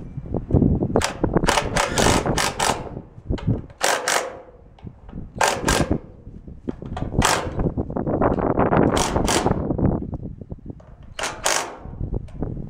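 Cordless impact driver hammering self-tapping screws with rubber washers into the container's sheet-metal wall, in short bursts that start and stop repeatedly as each screw is driven and seated.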